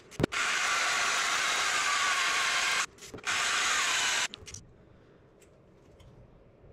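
Power drill boring into the cast-iron exhaust manifold of a 12-valve Cummins diesel, run in three spells with short pauses, then stopping about four seconds in, after which there are only a few faint ticks.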